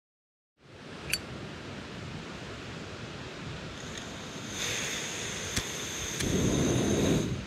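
Backpacking canister stove being lit: gas hissing from the burner with a thin high whistle, a few sharp clicks from a lighter, and a louder low rush of flame from about six seconds in as the burner catches. Underneath runs a steady rushing of flowing water.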